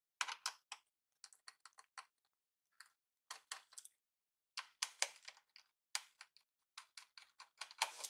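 Small screwdriver turning screws out of a laptop's plastic bottom case: quick light clicks and ticks in irregular clusters, with short pauses between.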